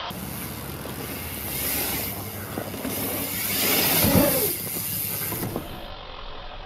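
A mountain bike ridden hard over a dirt track: tyre noise on the dirt and air rushing past. It is loudest about four seconds in, with a short scraping, pitched sound.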